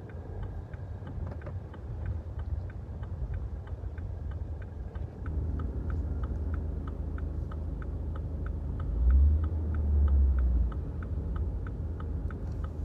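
Car indicator clicking steadily, a couple of ticks a second, over a low engine and road rumble that swells briefly about nine seconds in.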